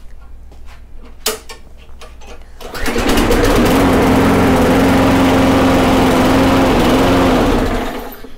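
Briggs & Stratton Quantum lawn mower engine starting about three seconds in, running at a steady pitch for about five seconds, then dying away near the end. The engine speed is set too slow after a bend of the governor linkage.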